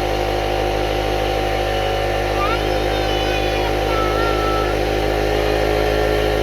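Electric air compressor running steadily, its motor and pump refilling the tank after air was drawn off to inflate a flat tire.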